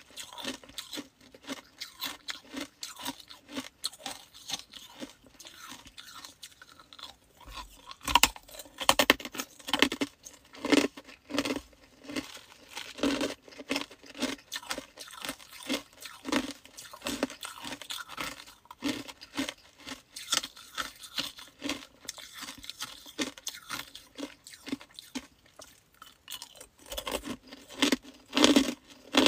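A person biting and chewing chunks of hard ice: an irregular run of sharp crunches and cracks, loudest about eight seconds in and again near the end.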